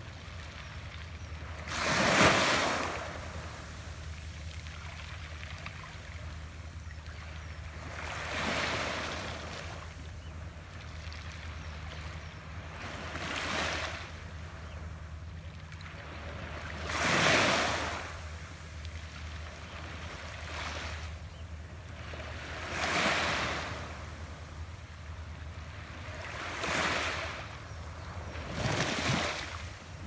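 Small waves breaking and washing up the beach, one surge every few seconds, the loudest about two seconds in and again about halfway through, over a steady low rumble.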